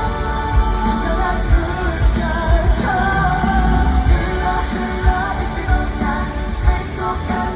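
Pop song performed live: male vocals sung over a backing track with a heavy bass beat, played through concert speakers.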